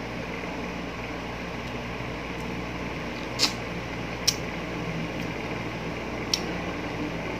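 Short wet mouth smacks from eating a slice of ripe mango, three sharp clicks spread over the second half, over a steady background hum.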